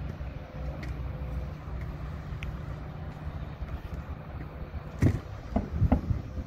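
Wind rumbling on the microphone, with a faint steady low hum underneath. Strong gusts buffet the microphone several times about five to six seconds in.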